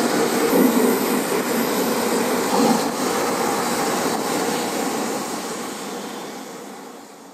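Steady engine roar, fading out over the last two seconds.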